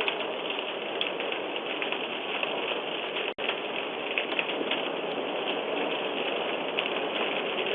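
A house fire burning, heard through a Ring doorbell camera's microphone: a steady rushing noise scattered with small crackles. The sound drops out for a split second about a third of the way in.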